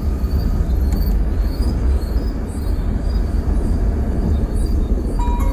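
Steady low rumble of wind and road noise from a vehicle moving at speed, with no distinct exhaust pops.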